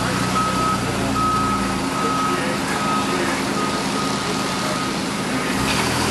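Vehicle reversing alarm beeping about once a second over a low engine hum. The hum stops about two seconds in, and the beeps fade out around five seconds in.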